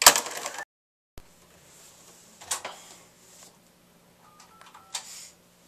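Handling noises of a corded hotel telephone, with a short burst of noise at the start and a sharp click about a second in. A few short electronic phone tones at two different pitches come near the end.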